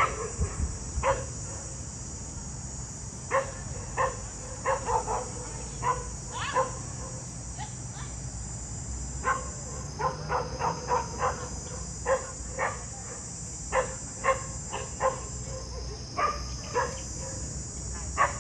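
Dog barks, short and sharp, coming in irregular runs throughout. A steady high insect drone runs underneath.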